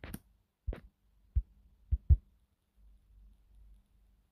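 A handful of short, sharp taps and clicks, irregularly spaced, with the loudest pair about two seconds in, from fingers tapping a phone screen while zooming the footage. A faint low hum lies underneath.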